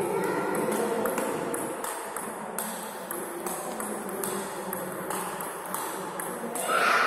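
Table tennis rally: the ball clicking off the rubber-covered paddles and bouncing on the table, a long, fairly even run of quick hits, about two to three a second. A louder voice-like sound rises near the end.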